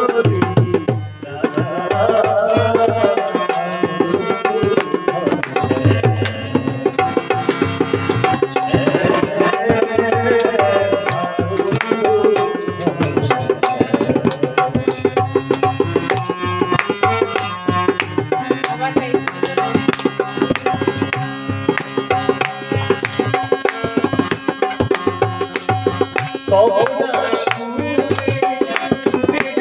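A man singing a Bengali devotional song into a microphone over a fast, continuous hand-drum rhythm and steady held instrument notes.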